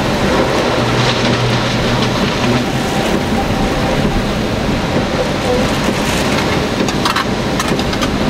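Hurricane wind and heavy rain rushing steadily over the microphone while a storm-damaged power line arcs and shorts out. A low electrical buzz sounds about a second in, and a few sharp crackles come near the end.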